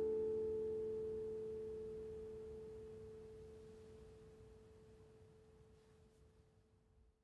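The last plucked note of the music, a single clear tone, rings on and fades away slowly and steadily, the final note of the piece.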